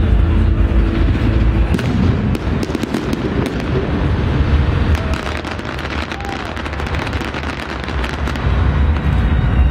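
Fireworks going off in a dense run of sharp bangs and crackles, starting about two seconds in and thinning out near the end, with a low steady rumble before and after.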